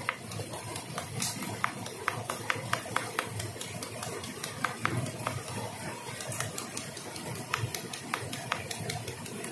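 Green chillies being crushed with a round hand stone on a flat rock: sharp, irregular knocks of stone on stone, several a second, over a steady background rush.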